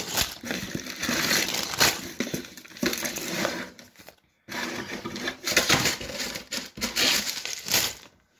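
A LEGO set's cardboard box and packaging being opened and unpacked by hand: irregular crinkling, rustling and tearing, with a brief total break about four seconds in.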